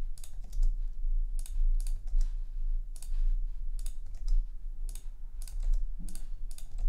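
Computer keyboard keystrokes and mouse clicks, a dozen or so scattered at irregular intervals, over a steady low hum.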